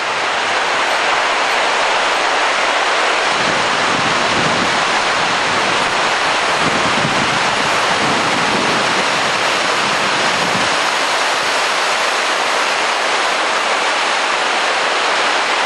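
Steady, loud wind rush over the microphone of a motorbike in motion, with a faint wavering lower hum partway through.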